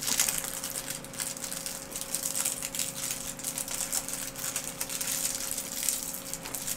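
Light crinkling and clicking of a candy wrapper being handled and unwrapped, in many small irregular crackles over a steady low hum.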